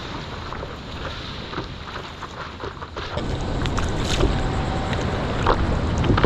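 Ocean water sloshing and splashing around a surfer, with wind buffeting the GoPro microphone; it grows louder and fuller about three seconds in.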